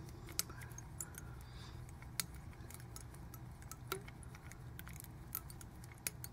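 Scattered, irregular light clicks and ticks of small fly-tying tools and monofilament being handled at the vise, over a low steady hum.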